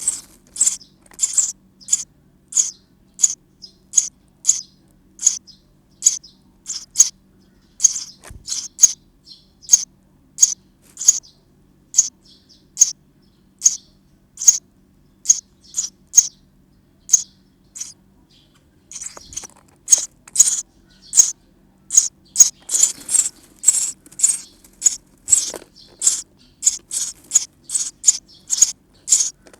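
Sparrow nestlings chirping: a steady run of short, high cheeps, about two a second, coming thicker and louder about two-thirds of the way through.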